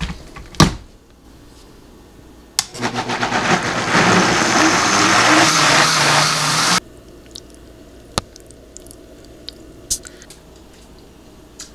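A Vitamix blender jar is set down on the base with a knock. The blender is then switched on and runs for about four seconds, building up over the first second and pureeing carrots, pears and cranberry sauce into a smooth sauce, before it cuts off suddenly. A single click follows.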